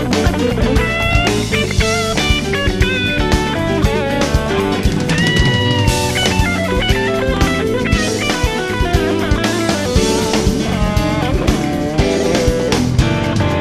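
Background music: a rock track with electric guitar and a drum kit keeping a steady beat.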